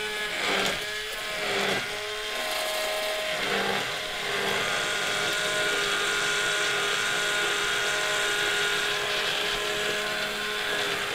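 Hand-held immersion blender running in a steel pot, frothing a butter-bound veal-stock horseradish sauce. Its motor sound wavers for the first few seconds, then holds a steady pitch and stops near the end.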